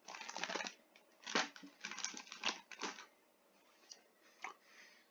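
Faint crinkling and crunching in a few short bursts over the first three seconds, from a crispy snack being handled and chewed, with one more short tick near the end.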